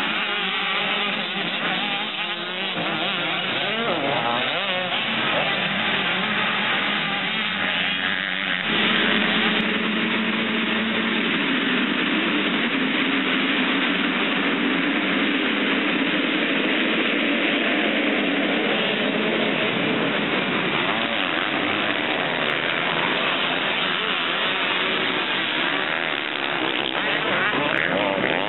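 Several motocross bikes running: engines revving up and down as riders race past, then an abrupt change about a third of the way in to a pack of bikes running together at the start line in a steady, dense din of engines.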